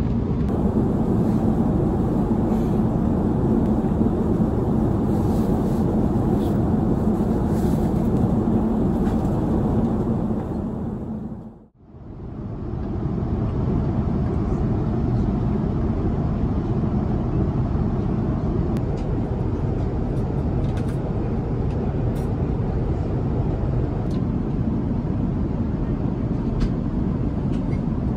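Airbus A350-900 cabin noise in flight: a steady rush of airflow and engine noise. It fades out and back in about twelve seconds in.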